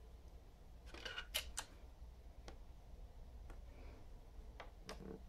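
Faint plastic clicks and clacks from handling a clear cassette tape at a Yamaha K-850 cassette deck, with a quick cluster of the loudest clicks about a second in and a few single clicks after.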